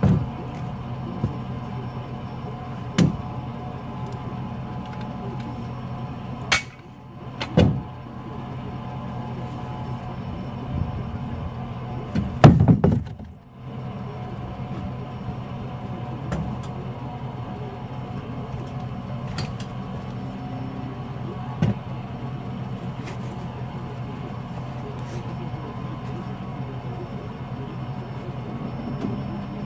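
Pickup truck engine idling steadily, with scattered knocks and clunks from the deer stand and the truck bed as the stand is rigged for towing. The loudest clunks come a little under halfway through.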